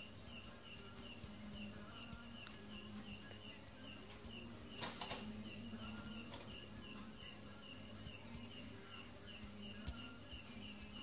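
Faint, evenly repeated high chirping, about three chirps a second, over a steady low hum, with a short rustling burst about five seconds in.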